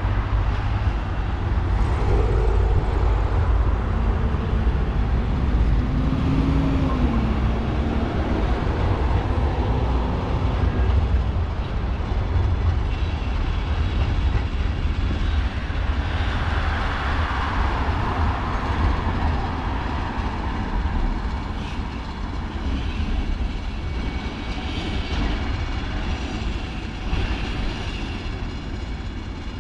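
Steady city road traffic with trams moving through a turnaround loop: a continuous low rumble of passing cars and rail vehicles, with a faint high whine in the second half.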